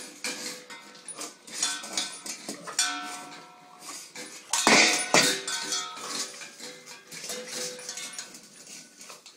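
Dogs eating raw chicken from stainless steel bowls: the bowls clank, scrape and ring as the dogs chew and push them along the wooden floor, with the loudest clatter about five seconds in.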